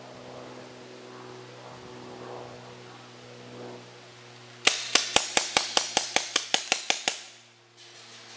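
Paintball marker firing a rapid string of about a dozen sharp pops, about five a second, starting about halfway through and lasting a couple of seconds, over a steady low hum.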